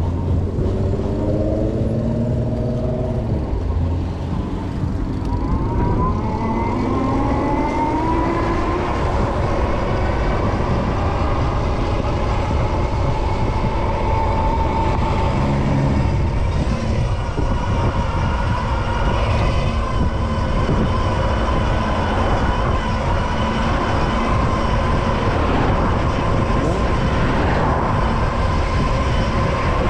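Electric motor whine from a Super73 ZX e-bike, riding in traffic. The pitch drops in the first few seconds, rises from about six seconds in as the bike speeds up, then holds steady at cruising speed. Underneath runs a steady low rumble of road and traffic.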